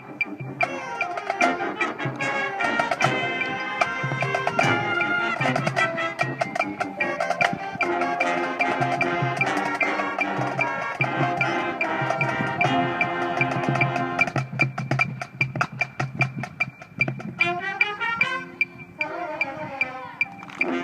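Marching band playing its show opener: brass chords held over drums and front-ensemble mallet percussion, with frequent sharp strikes. Near the end the held chords thin out to quick rising and falling mallet runs before the full band returns.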